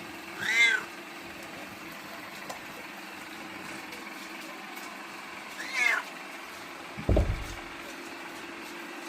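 Bengal kitten meowing twice, a few seconds apart, each meow rising and then falling in pitch. A low thump comes about seven seconds in.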